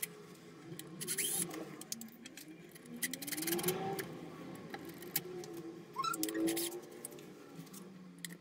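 Cordless DeWalt impact driver driving screws: the motor whirs up and down in pitch, with three short bursts of rapid hammering clatter, about a second in, around three to four seconds, and around six seconds.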